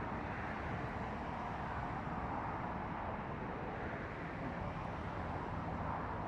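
Steady outdoor background rumble and hiss, like distant road traffic, with no distinct events.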